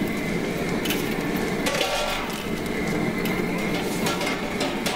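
Steady low rushing of a propane jet burner heating a stockpot at the boil, with a few knocks and clinks of a paddle against the stainless steel perforated basket.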